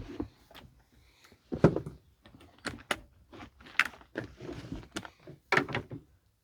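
Irregular clicks, knocks and short scrapes of metal and plastic parts being handled inside a stripped truck cab, with gaps of near silence between them.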